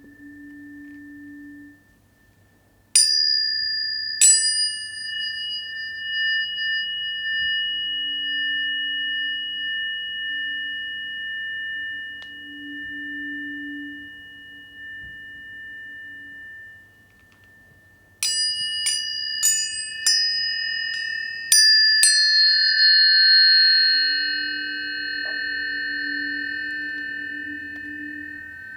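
Planetary tuning forks struck one at a time, each a sharp tap followed by a long, clear ringing tone. There are two strikes about three seconds in, then a quick run of about six strikes a little past the middle, whose tones ring together and slowly fade. A faint lower tone swells and fades underneath.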